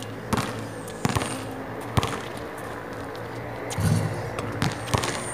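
Basketball bouncing on a hard outdoor court: a few sharp slaps, spaced unevenly about a second apart.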